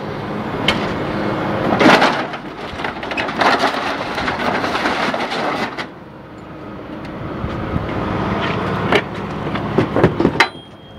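A scrapyard grapple claw gripping and dragging a demolition derby car's body off a trailer: crunching, scraping sheet metal with sharp metal clanks. It is loudest about two seconds in and again around nine to ten seconds, with a lull near the middle.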